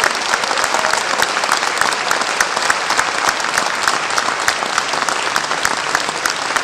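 Audience applauding steadily: many people clapping at once, at the end of a speech.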